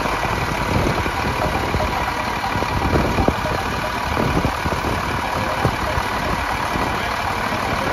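Garbage compactor truck's diesel engine idling steadily, with wind buffeting the microphone.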